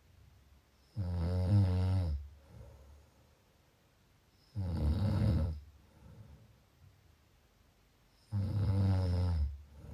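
A person snoring: three loud, pitched snores, each about a second long and about three and a half seconds apart, each followed by a fainter breath.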